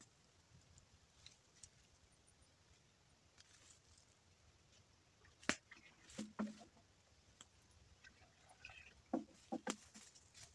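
Mostly quiet, with a few sharp knocks and clatters about halfway through and again near the end: a can-on-a-stick ladle knocking against a metal pot of hot tar as it is dipped.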